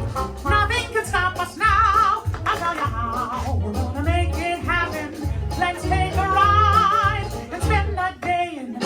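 Upbeat music with a singing voice that wavers in pitch, over a pulsing bass line.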